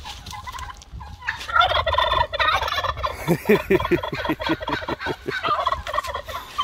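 Turkey toms gobbling, several rapid, warbling gobbles in a row starting a little over a second in.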